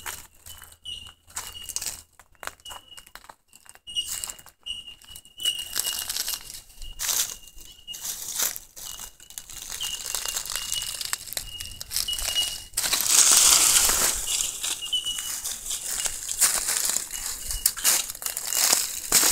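Dry leaf litter and twigs crackling and rustling as they are disturbed, in irregular bursts, with a longer, louder rush of rustling about two-thirds of the way through. A short high chirp repeats steadily in the background over the first part.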